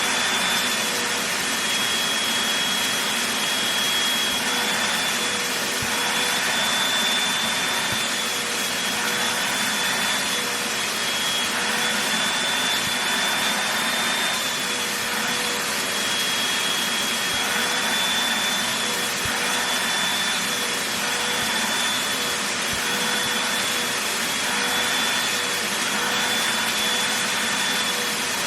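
Vacuum cleaner running steadily while it is passed over a blanket. Its motor whine wavers slightly in pitch over a constant rush of suction noise.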